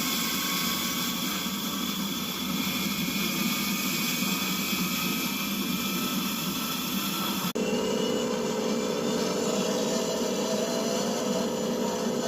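Washing machine running with a loud, steady mechanical rush. The sound changes abruptly about seven and a half seconds in, where a steady hum comes in.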